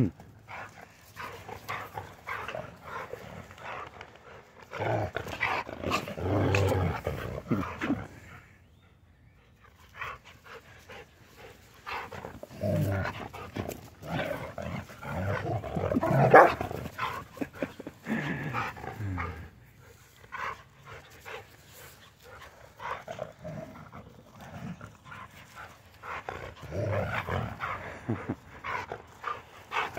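Two dogs, a large white dog and a young mountain feist, play-fighting, with bursts of growling and the odd bark coming in several spells separated by quieter gaps.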